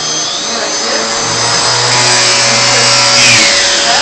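Vacuum cleaner running with a steady hum and a high whine, getting louder in the middle and easing off near the end.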